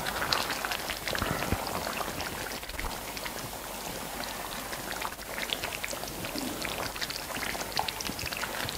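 Paneer masala gravy bubbling and sizzling in a clay pot on the stove, a dense crackle of small pops, as a wooden spoon stirs through it.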